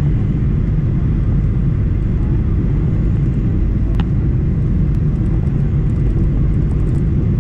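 Steady low rumble inside a jet airliner's cabin on final approach, the engine and airflow noise heard at a window seat, with a faint click about four seconds in.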